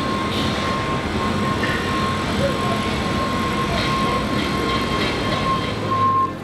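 Steady mechanical running noise, with a constant high whine.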